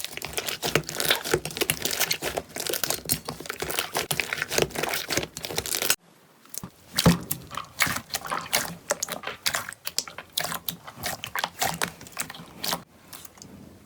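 Slime being squeezed and pressed by hand, giving dense crackling and popping clicks. It cuts off abruptly about six seconds in, then resumes as sparser pops and squelches.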